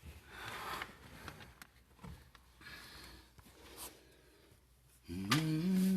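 A person breathing audibly, several soft breaths about a second apart, in a small room. About five seconds in, a voice starts, holding one pitch and then wavering.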